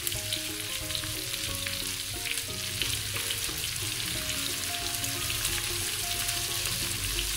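Chicken pieces sizzling steadily in butter and oil in a nonstick frying pan, with scattered light clicks and scrapes as metal tongs turn them.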